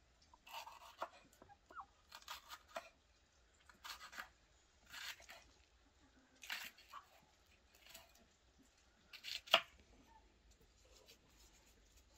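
Kitchen knife slicing through fresh bell peppers on a wooden cutting board: crisp crunchy cuts about once a second, with one sharper knock of the blade on the board near the end.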